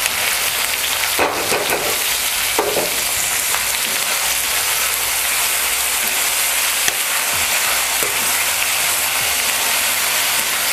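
Chopped onion tipped into hot oil in a kadai, sizzling steadily as it fries, while a metal ladle stirs it with a few scrapes and a click against the pan.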